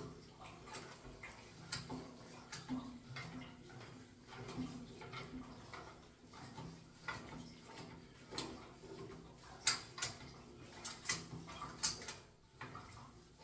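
Adjustable pliers working an old radiator valve loose on its pipe stub: irregular small metallic clicks and scrapes of the steel jaws on the metal fitting, with a few sharper clicks near the end.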